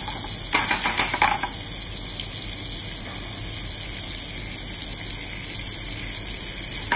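Yellowtail fillets frying in foaming butter in a frying pan: a steady sizzle, with a few louder crackles about a second in.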